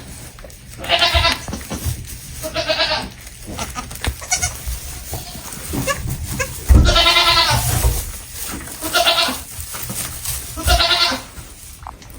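Baby goats bleating, about five quavering bleats in turn, the longest and loudest a little past halfway.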